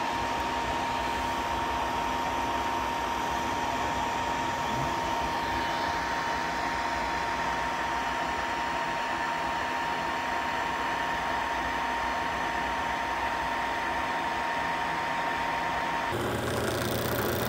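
Longer resin 3D printer running as its build platform lowers into the resin vat: a steady fan-like hiss with a constant high whine. About 16 seconds in, the whine stops and a lower steady hum takes over.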